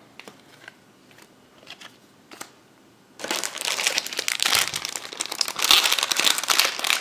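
Foil Pokémon booster pack wrapper crinkling loudly as it is handled and opened, starting about three seconds in, after a few faint clicks of cards being handled.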